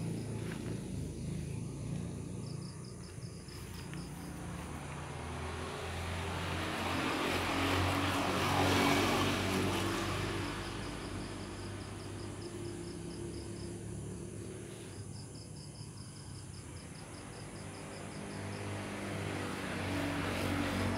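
A motor engine droning, swelling to its loudest about nine seconds in and then fading away, with faint rapid insect trills.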